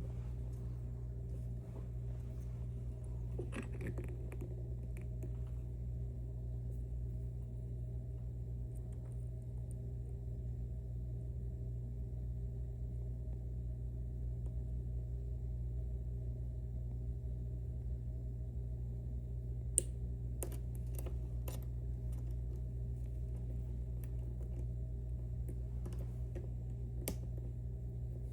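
Scattered small clicks and ticks of a flag pick and tensioner working the pins and sliders of a Mauer NW4 dimple lock, a few faint ones early and a run of sharper ones in the second half, over a steady low hum.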